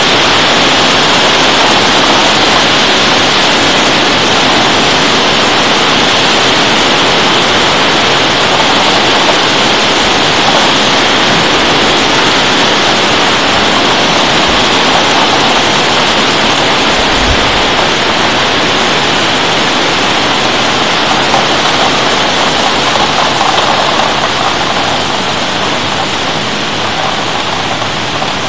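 Heavy thunderstorm rain pouring down in a loud, steady hiss, easing slightly near the end.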